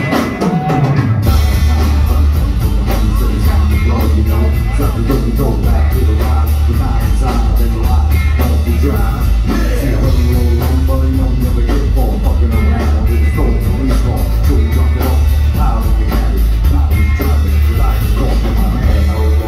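Live rock band playing through a concert PA: a steady drum-kit beat with heavy bass, guitar and keys under a lead vocal. The drums and bass come in about a second in.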